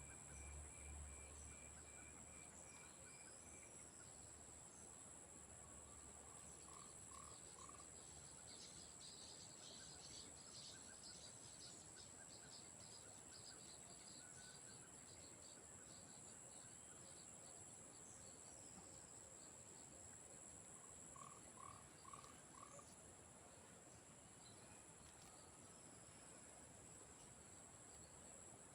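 Faint swamp insect chorus: crickets trilling steadily in two even high-pitched tones. A chattering pulsed trill rises above it from about eight to thirteen seconds in, and short clusters of lower pulsed calls come twice, about seven and twenty-two seconds in.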